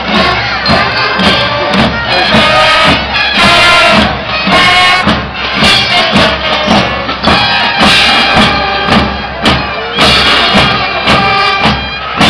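School band playing: a melody of held notes over a steady beat, about two beats a second.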